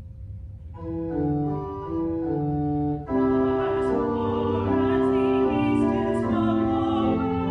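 Organ playing the melody of a sung psalm refrain as an introduction, held notes stepping one after another. About three seconds in it swells louder and fuller, with chords under the tune.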